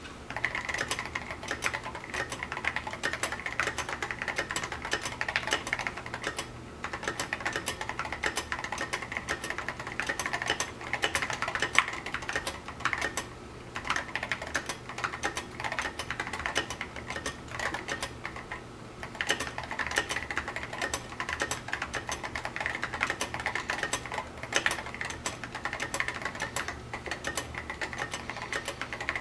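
Continuous fast typing on a custom mechanical keyboard with a steel case, 78g Zealios tactile switches and tall SA-profile PBT keycaps: a dense run of sharp keystroke clacks, broken by a few short pauses.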